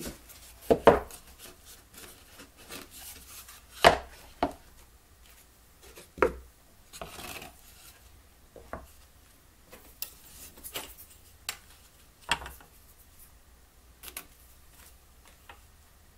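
Plywood kit parts being handled and set down on a wooden workbench: scattered knocks and taps of wood on wood, the loudest about a second in and about four seconds in, with a brief scraping slide around seven seconds.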